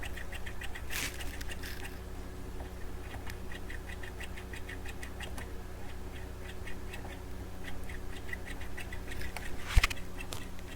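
Small, rapid scratchy ticks from a corroded trimmer potentiometer on the receiver's power amp board being cleaned, with a short hiss about a second in and a sharp click near the end, over a steady low hum.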